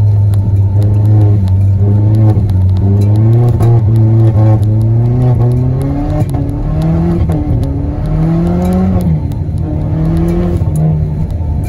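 Audi A3's 1.8-litre turbocharged four-cylinder engine heard from inside the cabin while driving, its revs rising and falling. The engine note holds low and steady for the first half, then climbs higher in a few steps in the second half.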